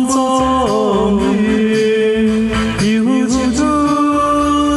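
A man singing a slow Taiwanese Hokkien ballad over a karaoke backing track, holding long wavering notes.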